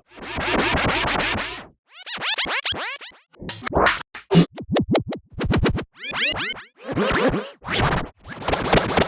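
Scratching sound effect: a quick series of short rasping scratches, several with swooping rises and falls in pitch, separated by brief gaps.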